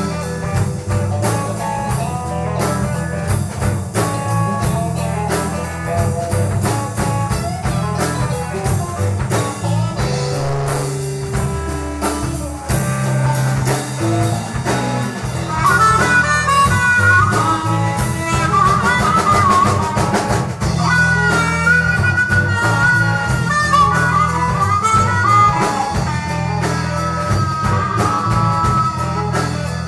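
Band music with a steady drum beat and bass line; a high lead melody comes in about halfway and carries on.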